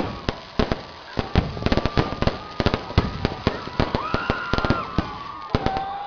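Aerial fireworks going off in rapid succession: a dense, irregular string of sharp bangs and crackles, several a second.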